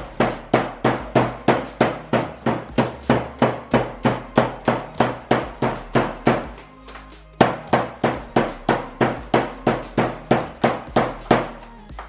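Wooden rolling pin pounding a bar of dark cooking chocolate wrapped in a tea towel on a tabletop, crushing it into pieces: loud repeated thuds, about three a second, with a short break just past halfway before the strikes resume.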